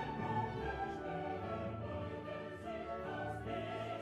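Orchestral classical music with a choir, playing steadily.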